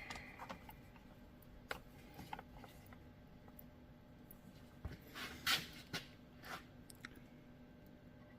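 Faint scattered clicks and light scrapes of small chainsaw parts being handled and fitted by hand, with a cluster of sharper clicks a little past halfway.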